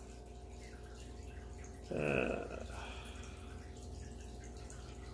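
Steady hum and water trickle of a running aquarium filter, with one short voice-like sound about two seconds in.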